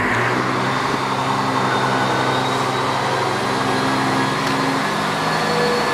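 Class 37 diesel locomotive approaching under power, its English Electric V12 diesel engine running with a steady, deep, pitched note. The engine note steps up right at the start and then holds.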